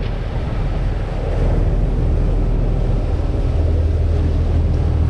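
Steady low drone of a party fishing boat's engines under way, with wind buffeting the microphone. The drone gets a little louder about a second and a half in.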